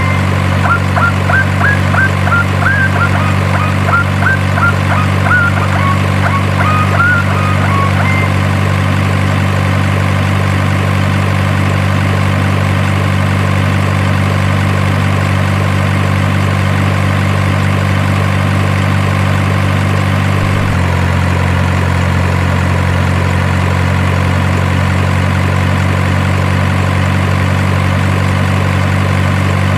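Steady truck engine idling sound, holding one even note and dropping slightly in pitch about 21 seconds in. Short high chirps sound over the first eight seconds or so.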